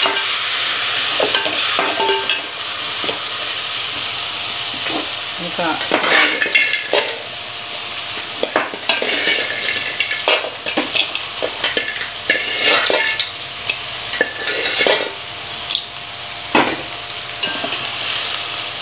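A metal spoon stirring and scraping grated-coconut masala around a metal pot, with irregular scrapes and clicks against the pan. A steady sizzle runs underneath as the masala and boiled crab pieces dry-fry over the flame.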